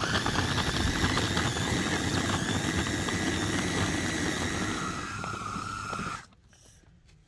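Electric food processor motor running with a high whine, its blade chopping raw boneless chicken with breadcrumbs and spices into a paste. The whine drops in pitch about five seconds in, and the motor cuts off suddenly about a second later.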